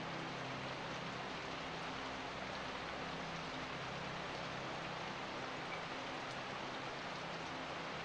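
Steady rain falling, an even hiss with no breaks or single loud drops.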